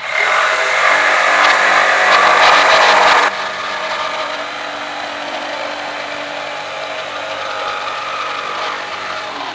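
Corded jigsaw running, its blade sawing a curved cut through a pine board. It is loud for about the first three seconds, then drops abruptly and carries on at a steady, lower level.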